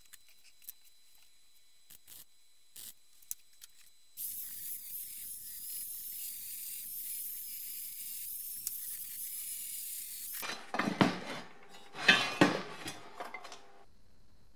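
Rotary tool with a wire-brush bit scrubbing the steel stub axle of a BMW E30 front strut. After a few faint clicks, a steady high whir starts about four seconds in. About ten seconds in it turns into louder scraping and clinking for a few seconds.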